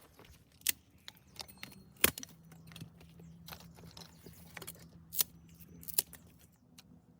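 Sharp clicks and light knocks of objects being handled, four of them louder than the many small ticks between.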